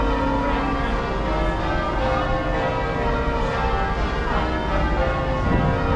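Church bells ringing in changes, many overlapping ringing tones.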